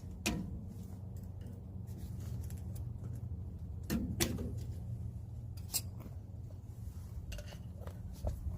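Occasional sharp metallic clicks and clinks of hand tools and drum brake parts being handled, over a steady low hum.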